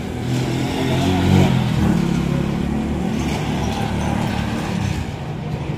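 A motor vehicle engine running nearby, a low rumble that grows louder between about one and two seconds in and then eases off.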